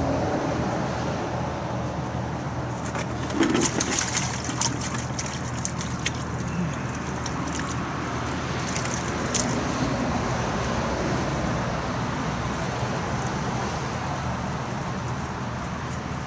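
Water trickling and splashing from a bucket and a wet rag or paper towel, used to wipe excess RTV sealant from around a freshly mounted port plug. Clusters of sharp crackling clicks come about three to six seconds in and again near nine seconds, over a steady background hum.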